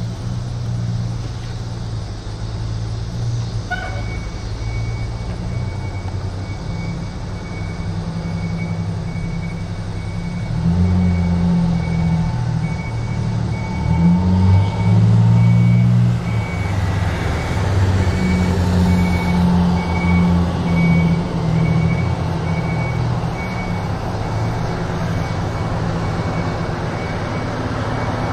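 Pierce Dash fire engine's diesel engine running and revving as the truck manoeuvres and reverses, louder for a few seconds midway, with its backup alarm beeping steadily about once a second from a few seconds in.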